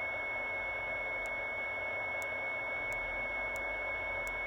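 Receiver audio from a (tr)uSDX QRP transceiver tuned to the 10 m band in USB: steady hiss with a thin steady whistle running through it, and a few faint ticks spaced roughly a second apart.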